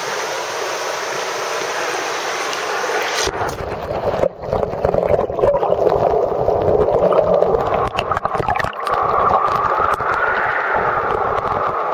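Shallow stream water rushing and gurgling close to the microphone. About three seconds in the microphone goes under the surface and the sound turns muffled and dull: a low underwater rumble of the current with scattered knocks and pops.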